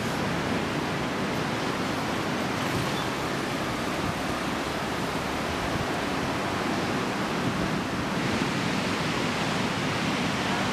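Ocean surf washing onto a sandy beach as a steady, even rush, with a low wind rumble underneath.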